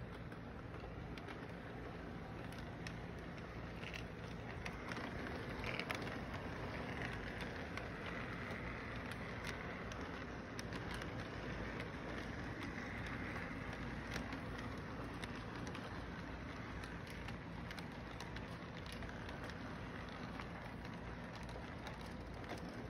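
Electric model train running around its track: a steady rumble of wheels on rail over the locomotive's motor hum, with scattered small clicks. It grows a little louder about five seconds in as the cars pass close.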